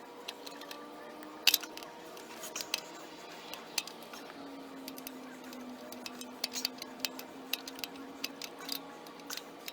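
Scattered light metallic clinks and taps of tools and parts being handled, the loudest about a second and a half in, over a steady faint hum.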